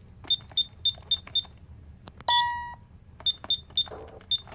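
Alarm keypads on a Vista 10SE panel beeping just after being armed away: two runs of short high beeps, about four a second, with one longer, louder and lower beep from another keypad about two seconds in.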